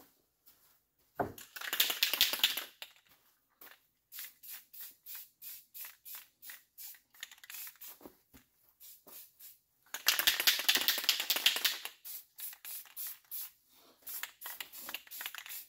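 Rust-Oleum aerosol spray paint can spraying: a burst of hiss, then a run of short quick puffs about three a second, a longer hiss about ten seconds in, and more short puffs near the end.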